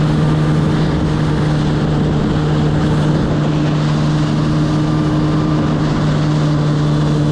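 Jet ski engine running at cruising speed with a steady, unchanging hum, over the rush of spray and wind.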